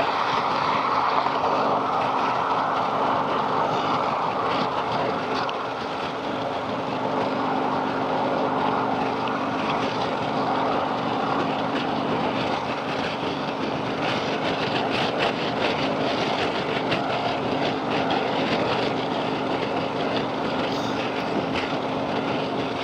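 Harley-Davidson Street Glide's V-twin engine running steadily at cruising speed, under a constant rush of wind and road noise.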